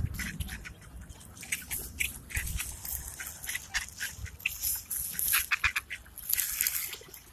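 Ducks and geese pecking and nibbling at bread held in a hand: many quick clicking bill snaps, with short duck calls mixed in.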